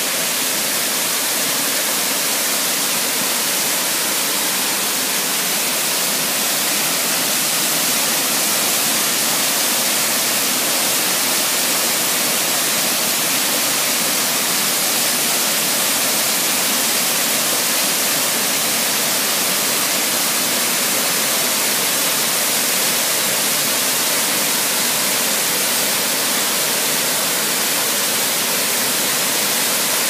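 Waterfall of about 7 m with a strong flow, water pouring over rock and crashing into its plunge pool: a steady, loud rushing hiss.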